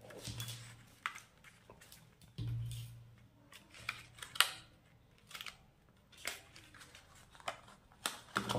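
Sheets of paper pattern pieces rustling and crinkling as they are handled and pinned together, with scattered light taps and clicks. The sharpest click comes a little after four seconds in.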